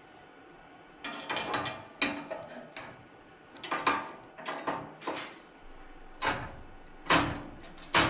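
Metal parts being handled: about ten separate clanks, knocks and short scrapes at uneven intervals.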